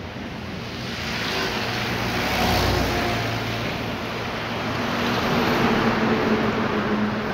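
Passing road traffic: a vehicle engine hum under a rushing noise that swells twice.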